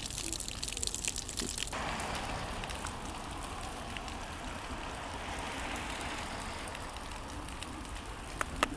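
Heavy rain falling and splashing on wet pavement in a steady hiss, which grows fuller just under two seconds in. A couple of sharp ticks come near the end.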